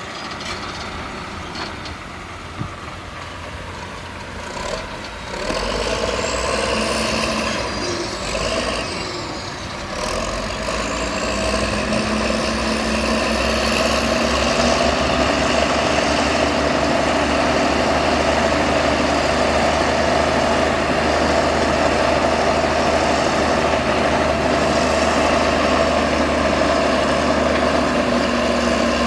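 Heavy diesel engine of earthmoving machinery working under load. It grows louder about five seconds in, with a rising and falling whine, and runs steady and louder from about twelve seconds on.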